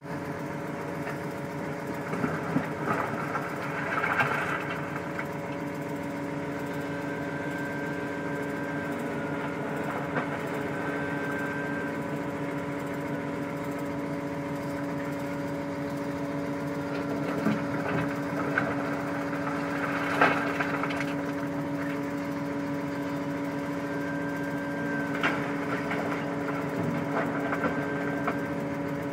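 Diesel engine of heavy earthmoving equipment running steadily, with a few sharp knocks now and then and a faint higher whine that comes and goes.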